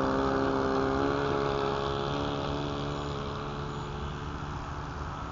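Saito FA-62 four-stroke glow engine of an RC model plane running at high throttle on its takeoff roll, a steady pitch that slowly grows fainter as the plane runs away down the runway and lifts off.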